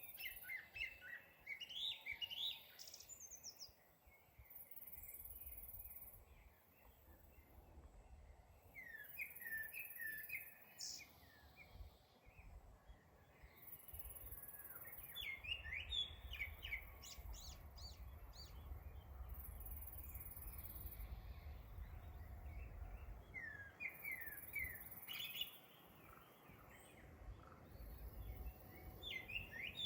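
A small songbird singing short phrases of quick, chirping notes, a new phrase about every five to seven seconds, over a faint low rumble.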